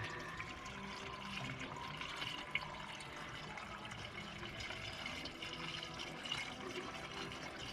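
Coolant pouring steadily into a Sprinter van's cooling system as it is refilled, with one faint click about two and a half seconds in.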